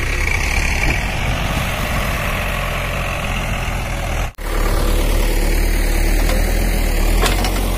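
Diesel engine of a Caterpillar 424B backhoe loader running steadily at a pond dig, with a short break about four seconds in.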